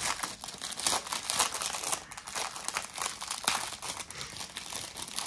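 Small plastic sachets of diamond-painting drills and rhinestones crinkling irregularly as they are handled.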